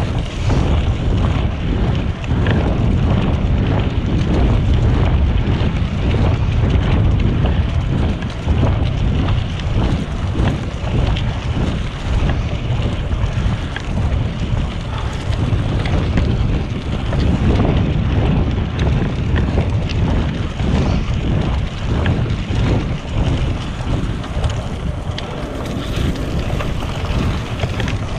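Wind buffeting the microphone of a camera on a moving bicycle, a steady loud rush. Under it the tyres of a cyclocross bike rumble over a gravel trail covered in leaves, with frequent small knocks and rattles from the bumps.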